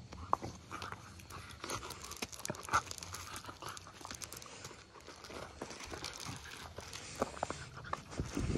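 Two puppies play-fighting on gravel: scuffling and gravel crunching under their paws, with a few brief puppy vocal sounds, about three seconds in and again near the end.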